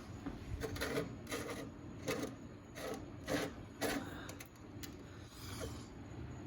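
Light metallic clicks and knocks, about eight irregular ones, as a 4L60E low/reverse piston return spring is set down on a table and rocked to check that it lies flat and is not bent.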